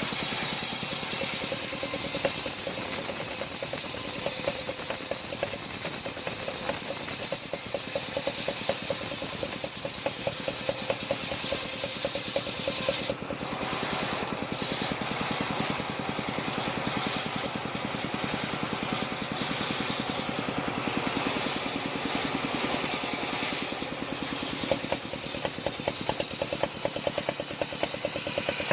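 Engine-driven circular saw (serkel) running steadily: a fast, even engine beat with a hiss above it. The highest part of the hiss drops away about thirteen seconds in.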